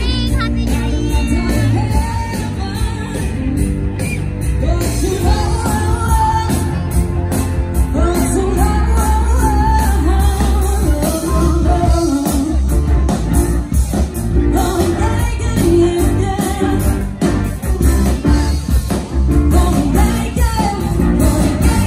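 Live rock band playing on stage: a woman sings lead over electric guitars and drums, with a heavy, steady bass, heard from within the crowd.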